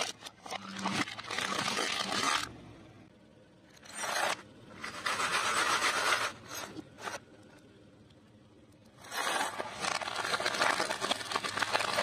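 Crunching and scraping of brittle plastic and cracked glass being crushed and rubbed on concrete, in several bursts with quieter pauses between.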